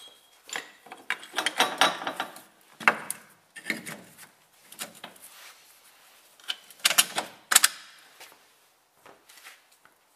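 Irregular metallic clanks, clicks and scrapes as a cast steering knuckle with its new wheel hub is handled and fitted over the driveshaft splines. The clatter comes in bunches, heaviest about two seconds in and again about seven seconds in.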